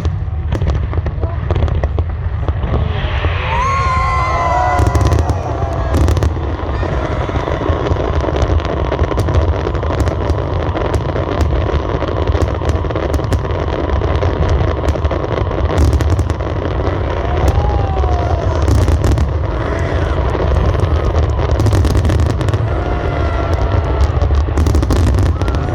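Fireworks display: a steady low rumble of booms with dense, continuous crackling and popping throughout.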